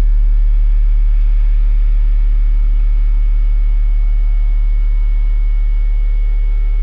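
Ambient drone music: a deep, loud sustained low tone under a cluster of held higher tones, with a thin high tone coming in about two seconds in; the whole drone slowly fades.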